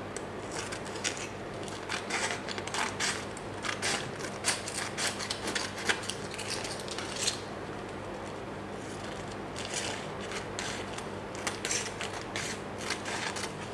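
Scissors cutting through aluminium foil laminated with packing tape: a run of quick, crisp snips with the foil crackling. The snipping pauses briefly about halfway, then starts again.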